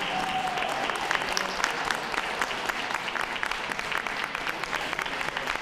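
Audience applauding, many hands clapping steadily.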